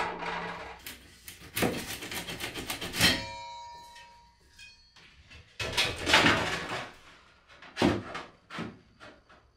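Stainless steel chimney pipe being handled and fitted into a wall pass-through: a run of quick metal scrapes, then a clang about three seconds in that rings on for nearly two seconds, followed by more scraping and a few sharp knocks near the end.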